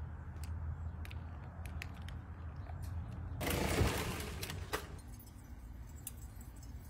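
Aluminium foil pan scraping and rattling on metal grill grates for about a second and a half, midway through, over a low steady hum and scattered light clicks.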